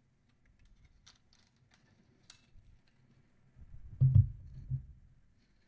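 Small clicks and taps of a compact mirrorless camera being handled. About four seconds in the camera is set down on a wooden table with a soft thud, and a lighter knock follows just after.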